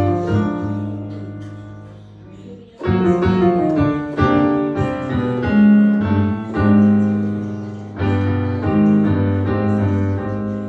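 Amapiano music: piano chords held over a deep bass line, struck afresh near the start, about three seconds in and about eight seconds in, each time slowly fading.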